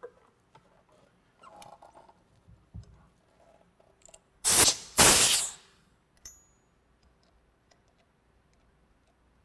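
Two short blasts of compressed air hissing about four and a half seconds in, the second longer, as air is let into the pneumatic valve actuator to stroke the valve. Small clicks of a brass air fitting being handled come before.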